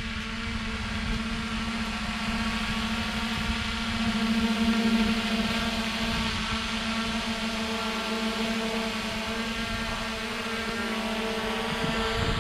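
A long-range quadcopter in a steady hover. Its four iFlight XING 2806.5 1300 kV brushless motors spinning 7-inch propellers give a steady hum of even pitch, which swells a little about four seconds in.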